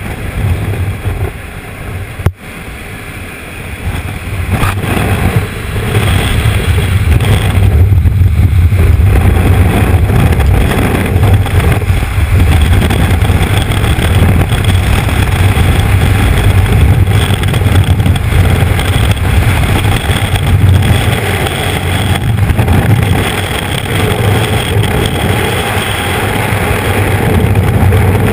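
Freefall wind blasting over a GoPro Hero2 camera's microphone, a loud low rumble. It starts lighter at the aircraft door, builds over the first six seconds as the fall speeds up, then holds steady. A sharp click about two seconds in.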